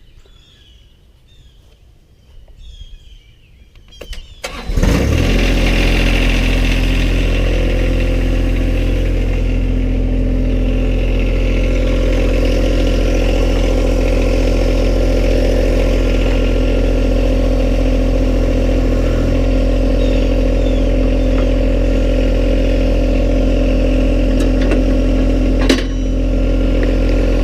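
Faint bird chirps, then about four and a half seconds in the John Deere 1025R compact tractor's three-cylinder diesel engine cranks, catches and runs steadily. A single short knock comes near the end.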